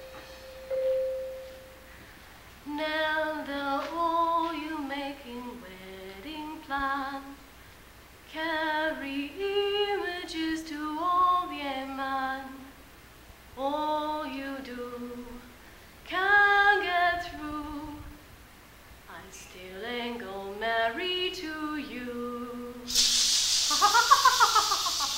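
A woman's solo unaccompanied singing: phrases of held, gliding notes, each a second or two long, with short pauses between them. A brief steady tone sounds about a second in, and a loud burst of hiss comes in near the end.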